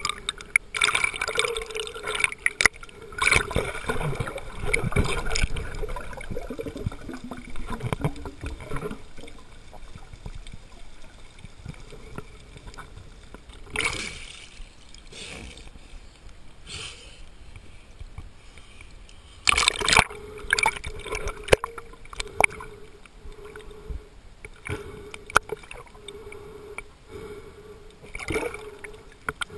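Swimmer's underwater camera picking up muffled water noise and gurgling, with louder splashing bursts as it breaks the surface about halfway through and again a few seconds later.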